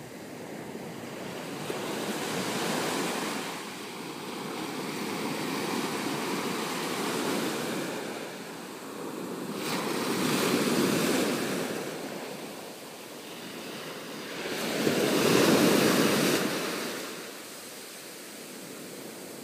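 Surf breaking and washing up a sandy beach, each wave swelling and fading about every four to five seconds, the loudest wave coming about three-quarters of the way through.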